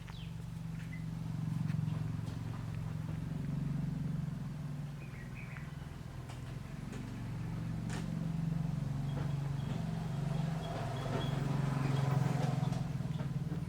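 Cat purring, a steady low rumble that swells and eases every few seconds.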